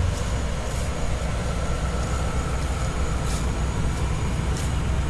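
A 1959 Cadillac's 390 cubic-inch overhead-valve V8 idling, a steady low rumble.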